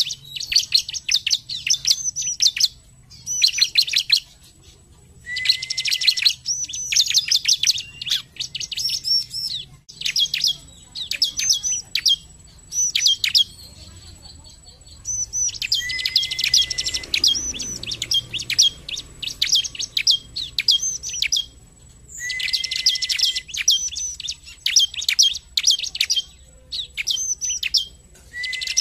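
Bar-winged prinia (ciblek) singing: several bursts of rapid, high chirping notes, each a few seconds long, broken by short pauses. Some bursts open with a brief, steady, lower whistle.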